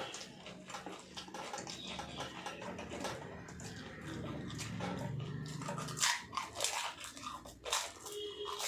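People eating fast, chewing and biting food, with smacking clicks and mouth noises.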